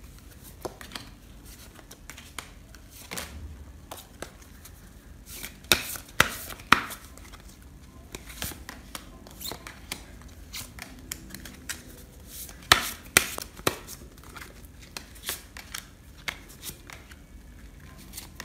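Oracle cards being handled and dealt out by hand: scattered sharp snaps and taps as cards are flicked off the deck and laid down, the loudest two pairs about six and thirteen seconds in.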